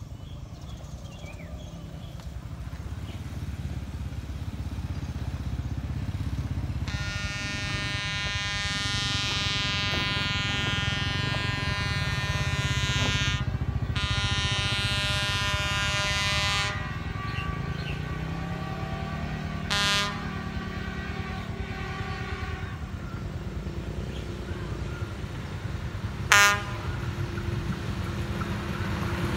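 Horn of an approaching rail maintenance vehicle: one long blast of about ten seconds with a brief break partway, then two short toots. An engine drone underneath grows louder as the vehicle nears.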